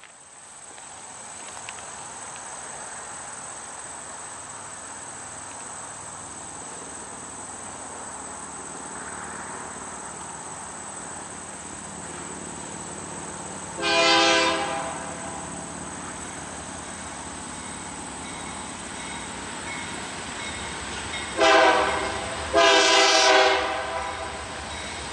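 Nathan K3LA three-chime air horn on a BNSF GE Dash 9-44CW locomotive sounding its chord as the train approaches. There is one blast of about a second halfway through, then a short blast and a longer one near the end, over the steadily rising rumble of the oncoming train.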